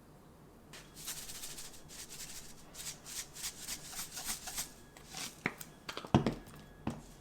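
Irregular rustling and shaking from something being handled, then a few sharp knocks and a louder thump about six seconds in.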